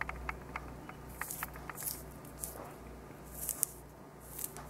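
Fingers pulling the flesh of a blood orange wedge away from its peel: a string of small clicks and a few short, hissy tearing sounds, over a low steady hum.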